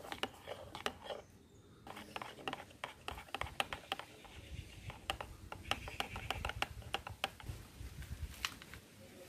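Steel spoon stirring seeds soaking in water in a small bowl, clicking and scraping irregularly against the bowl's sides and bottom.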